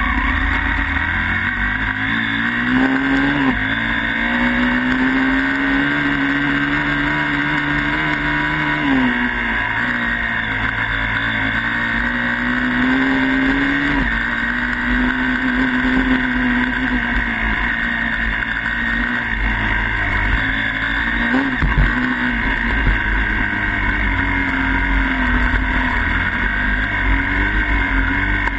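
Small dirt bike engine running while riding off road, its pitch climbing slowly then dropping sharply several times as the throttle is worked, over the low rumble of wind on the microphone.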